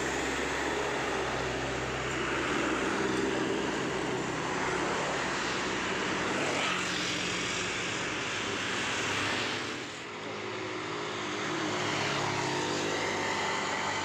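Heavy bus diesel engine pulling up a climb as it passes and moves away, mixed with motorcycles and a car going by. Near the end another large engine approaches, its pitch rising.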